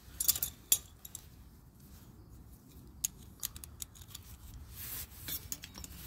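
Sharp metallic clicks and clinks as a top-load washing machine's clutch band, with its coil spring and stacked washers, is handled and fitted over the transmission hub. Two loud clicks come in the first second, then a scattering of lighter ones.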